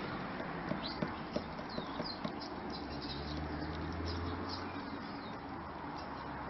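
Hens moving around a food plate on a wooden deck: a run of sharp taps and clicks in the first couple of seconds, with short high bird chirps throughout and a low hum for a couple of seconds in the middle.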